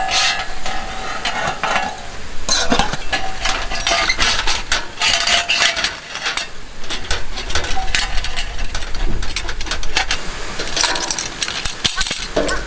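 Thin metal heat-shield table panels clinking, rattling and scraping against each other and a metal mesh table as they are handled and fitted over a camping burner, a steady run of short, sharp metallic clicks.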